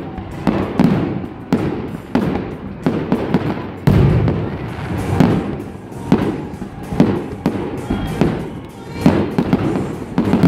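Fireworks display: aerial shells bursting in a rapid, irregular series of bangs, the biggest about four seconds in, over background music.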